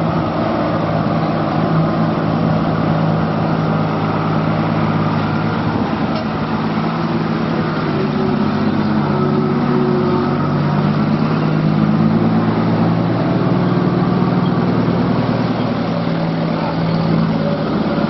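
Diesel truck engines running at low speed as heavy trucks crawl through a tight hairpin bend: a steady, loud engine drone whose pitch rises and falls slightly partway through.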